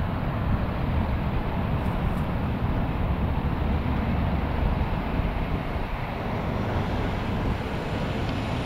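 Boeing 777-300ER's two GE90-115B turbofans at takeoff thrust as the airliner lifts off and climbs away: a steady, deep jet rumble that eases slightly in the last few seconds.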